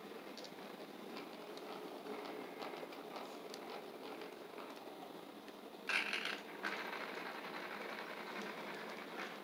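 Redcat Gen 8 RC rock crawler's electric motor and geared drivetrain whirring and rattling as the truck crawls slowly. About six seconds in there is a brief, louder clatter.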